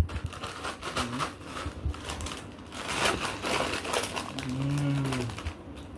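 A plastic snack packet crinkling and rustling as a toddler handles it, with a man's short, low 'mmm' hum a little after the middle.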